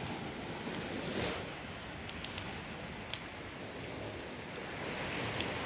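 Steady wash of sea waves breaking on the shore, with a few light sharp clicks scattered through it.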